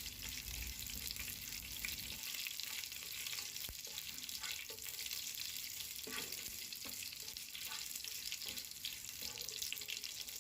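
Curry leaves frying in hot oil in a pot: a steady sizzle with scattered crackles and a few light clicks.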